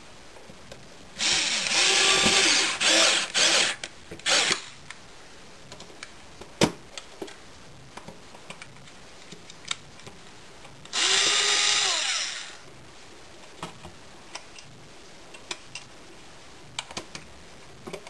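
Power drill driving screws, in two runs of its motor whine: the first about a second in, lasting a couple of seconds with a short extra burst after it, the second around eleven seconds in. Light clicks of handling come between the runs.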